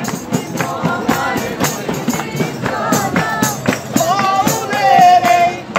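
Live group singing of a festive song over a steady beat of hand percussion. A voice holds a long, loud note about four seconds in.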